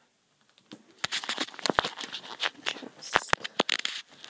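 About a second of near silence, then rustling, scraping and small irregular knocks as the recording device is handled and carried. A couple of dull bumps come about three seconds in.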